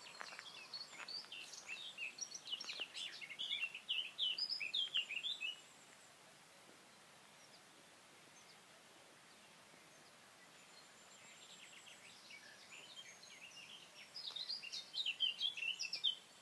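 Small songbirds singing in quick, high chirping phrases for about five seconds, then a lull with only faint distant song, then another burst of chirping near the end.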